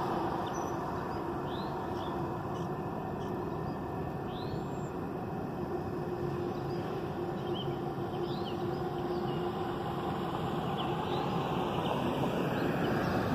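A car passing on the road and fading away at the start, then a steady hiss of traffic with several short, high bird chirps; the hiss swells again near the end.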